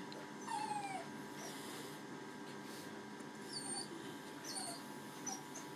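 Maltese-cross dog whimpering in high thin whines: one longer falling whine about half a second in, then several short whines near the end. He is crying out of distress at being bathed.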